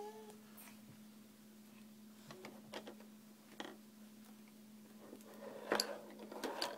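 Faint scattered clicks and knocks of small toys being rummaged through in a wooden drawer by a child's hand, busier near the end, over a low steady hum.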